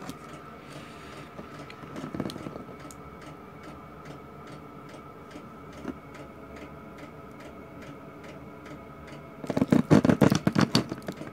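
Steady, regular ticking over a faint constant high tone. Near the end comes a short burst of louder knocks and rattles, like parts being handled.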